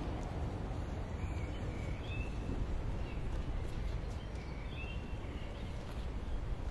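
Outdoor ambience: a steady low rumble with faint, brief bird chirps every second or so.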